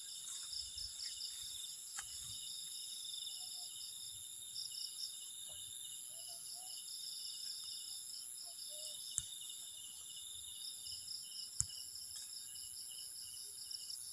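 Night chorus of crickets and other insects trilling steadily in several high-pitched bands, some with a fast pulsing rhythm. Two sharp clicks stand out in the second half, a couple of seconds apart.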